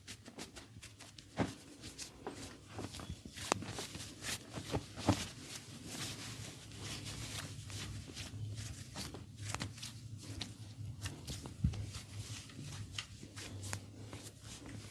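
Massage sounds: hands rubbing and slapping skin, with many sharp cracks and clicks scattered throughout, a few louder than the rest, over a low steady hum.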